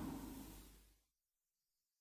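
The last of a Shin Godzilla roar sound effect dying away in the first half second or so, then complete silence.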